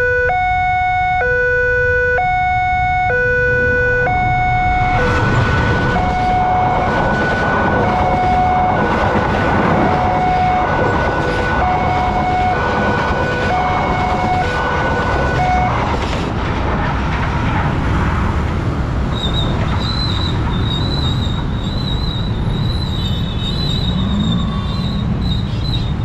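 A railway level-crossing alarm sounds a two-tone hi-lo wail like an ambulance siren, switching pitch about once a second. From about five seconds in, a passing passenger train's running noise and regular wheel clatter build up over it. The alarm stops at about sixteen seconds, and the train noise carries on more weakly.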